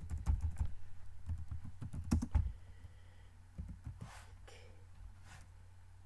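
Typing on a laptop keyboard, picked up by the laptop's own built-in microphone: a quick run of key clicks for about two and a half seconds, then a few scattered presses.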